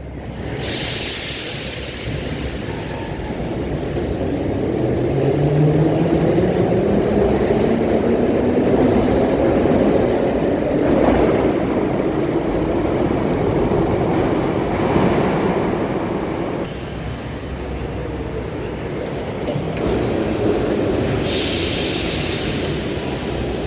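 Metro train accelerating along the platform, its electric traction motors whining and rising steadily in pitch over wheel and track rumble. A burst of hiss comes near the start and another near the end.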